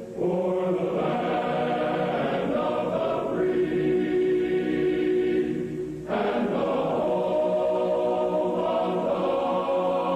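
A choir singing a national anthem in long held notes, with a brief break between phrases about six seconds in.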